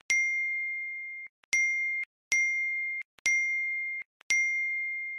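A clear, high bell-like ding struck five times, roughly a second apart. Each strike rings with a fading tone and then cuts off abruptly into dead silence.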